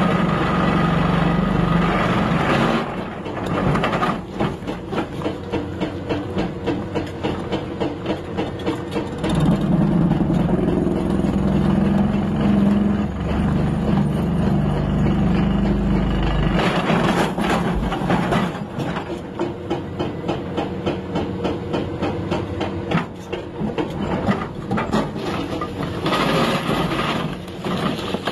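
Excavator-mounted hydraulic breaker hammering rock, a fast run of blows many times a second, over the excavator's diesel engine running under load.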